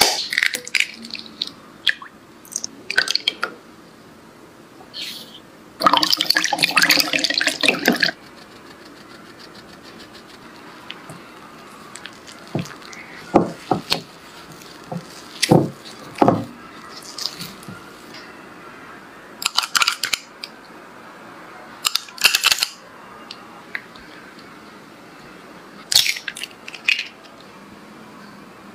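Kitchen prep sounds with a glass mixing bowl: clicks of eggs cracked on the bowl near the start, a dense stretch of stirring about two seconds long, then scattered taps, scrapes and soft wet sounds of a spatula working a thick batter in the bowl.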